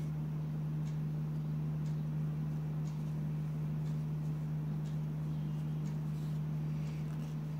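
Steady low hum with faint light clicks now and then.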